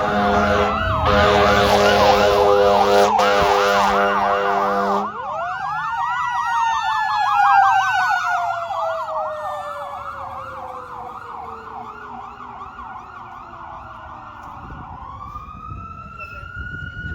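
Fire engine sirens on a response run: a steady air horn blast sounds over a fast electronic yelp siren and cuts off about five seconds in. The yelp carries on while a second siren tone rises, then falls slowly in pitch for about nine seconds. Near the end a siren winds back up.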